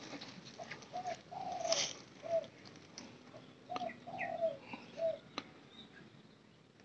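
Spotted dove cooing in two phrases, about a second in and again about four seconds in. Each phrase is a few short coos and one longer coo that falls in pitch. A few faint clicks come in between.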